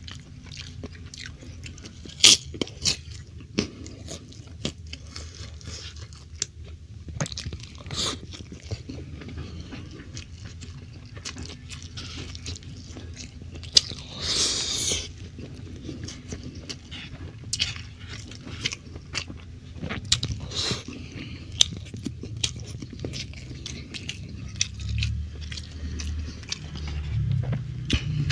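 Close-miked mukbang eating: a person chewing mouthfuls of stir-fried beef and rice, with scattered wet mouth clicks and a short hiss about halfway through.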